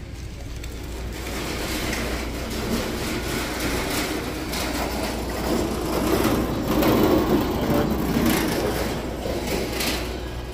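Steady rumbling, rattling noise of something rolling or moving, which swells in the middle and eases off near the end.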